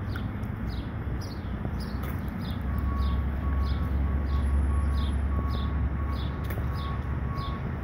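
Outdoor parking-lot ambience: a bird repeats a short, high, falling chirp about twice a second. From about three seconds in, a vehicle's low engine rumble swells and a faint, evenly repeating beep joins it.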